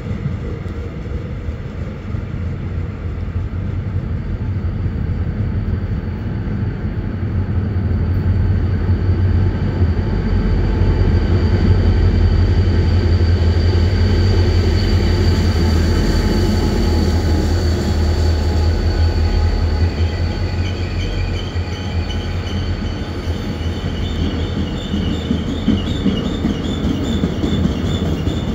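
Diesel locomotive hauling a Mugunghwa-ho passenger train pulling into a station platform. The engine's low rumble builds and is loudest as the locomotive passes, about halfway through. The coaches then roll by with repeated high-pitched metallic squealing as the train slows.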